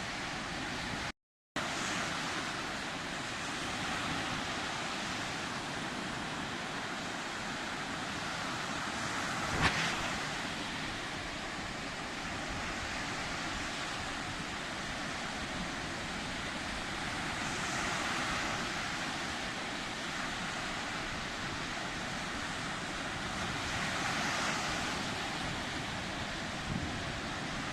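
Sea waves rushing and washing in a steady roar that swells every several seconds, with some wind on the microphone. The sound drops out completely for a moment a little over a second in, and there is one sharp click just before ten seconds.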